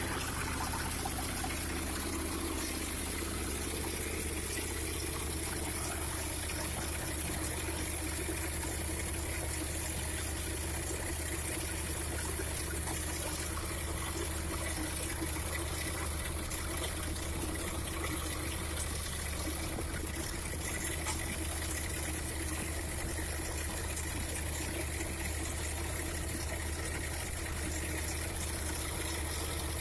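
Trencher machine digging into hard soil: a steady low engine drone under a continuous rushing noise from the cutting.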